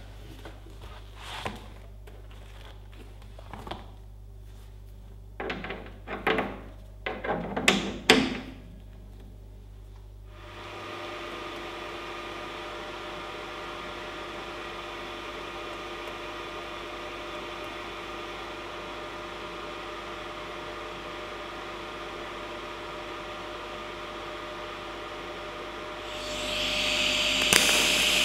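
Scattered clicks and knocks, then a steady mechanical whir with a few held tones starting about ten seconds in, joined near the end by a louder, brighter hiss.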